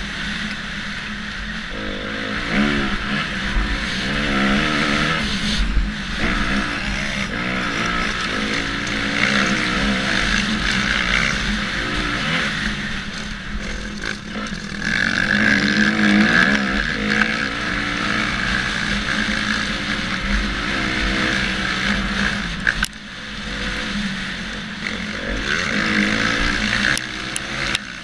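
Dirt bike engine revving, its pitch rising and falling over and over as the rider works the throttle, with wind rushing over the helmet camera's microphone. The engine drops off sharply about two-thirds of the way through, then picks up again.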